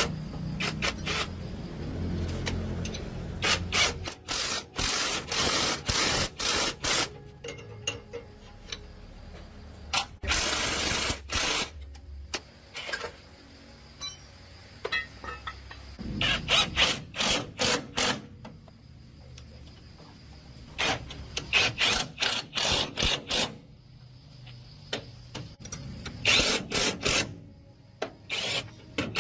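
Metal hand-tool work on truck wheel and axle parts: bursts of quick clicking and clanking, a few seconds apart, with quieter stretches between.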